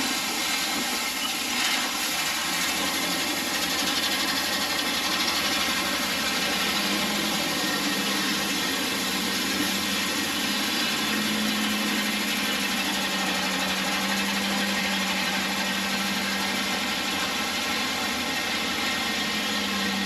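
Gravel spreader truck running, its rear spinner flinging gravel onto the ground as the truck drives slowly: a steady rush of stones over the truck's engine. A low steady hum comes in about seven seconds in.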